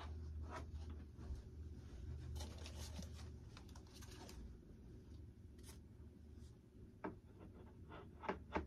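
Hands handling and pressing on a foam RC jet model's airframe: scattered scrapes and rustles, then a few sharp taps near the end, over a faint low hum in the first half.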